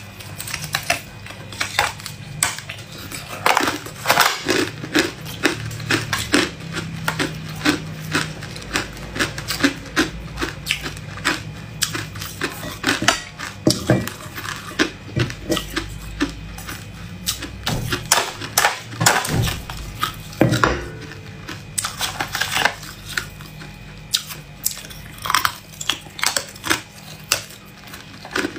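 Hard ice being bitten and chewed, a dense, irregular run of sharp cracks and crunches.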